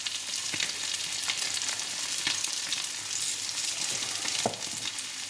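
Potato cakes and a fried egg sizzling in hot vegetable oil in a frying pan: a steady hiss with scattered crackles and spits. One light knock about four and a half seconds in.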